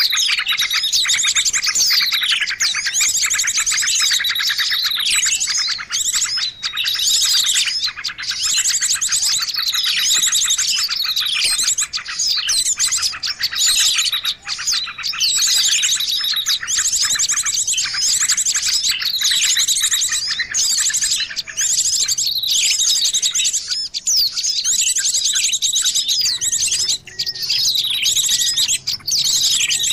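Dense chorus of small songbirds chirping and trilling without a break, many high calls overlapping, some falling in pitch. It is a lure (pikat) recording meant to draw small wild birds.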